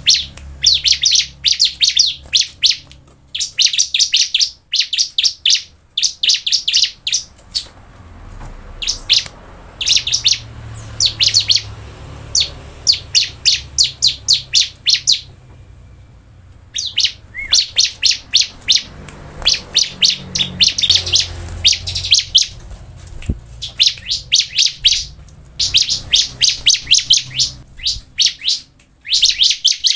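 Bar-winged prinia (ciblek) singing a loud, fast song: repeated bursts of rapid, sharp, high notes, each burst a second or two long with short gaps between, and a longer pause about halfway through.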